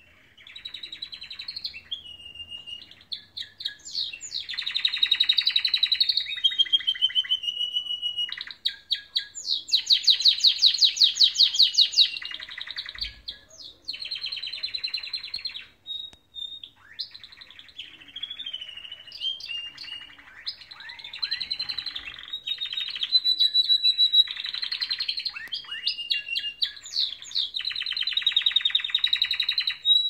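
Domestic canaries singing a long, varied song of rapid rattling trills, rolling notes and clear whistled phrases, with brief pauses between phrases. The loudest part is a very fast trill about a third of the way through.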